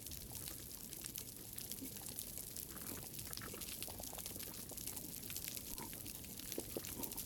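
Underwater reef sound through a hydrophone: a dense, continuous crackle of snapping pistol shrimp, with a few faint short cooing calls, which the recordists trace to a moray eel.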